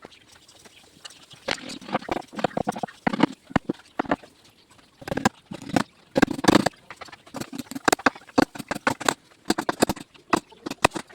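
Mallet striking a carving chisel into teak wood, quick irregular runs of sharp taps with short pauses between them.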